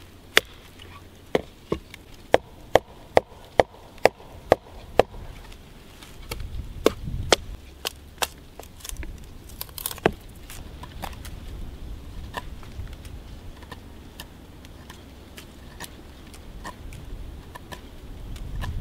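Short, light chops of a hand-forged axe held close to the head, splitting thin wood against a log. About nine sharp knocks come roughly two a second in the first five seconds, a few heavier strikes follow, and lighter scattered knocks run on after them.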